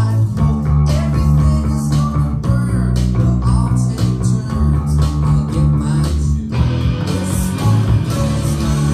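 Electric bass guitar picked with a plectrum through an amplifier, playing a steady bass line of repeated low notes over a backing rock track.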